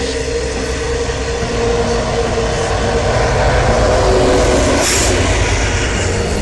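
Heavy iron ore train rolling past: loaded ore wagons rumble on the rails, and a diesel locomotive's engine drone grows louder and peaks about four seconds in as it goes by.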